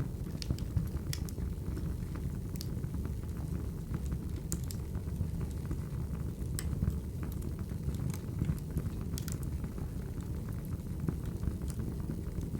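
Recorded wood fire crackling: a steady low rumble of flames with irregular sharp pops and snaps of burning wood every second or so.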